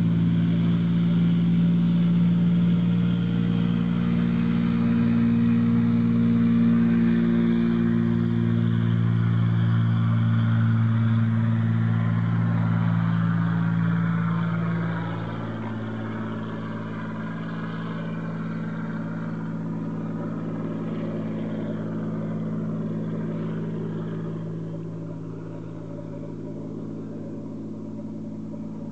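Turbocharged Cessna 182's piston engine and propeller at full takeoff power: a steady drone on the takeoff roll and lift-off. Its pitch drops slightly as it passes, then it grows fainter as the plane climbs away.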